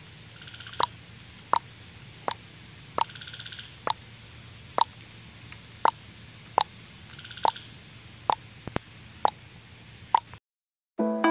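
Regular drip-like plops, about one every three quarters of a second, over a steady high-pitched tone; they stop shortly before the end.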